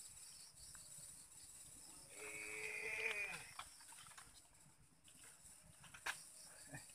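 Night insects chirring steadily, with a drawn-out voice-like call about two seconds in that falls in pitch at its end, and a single sharp click near the end.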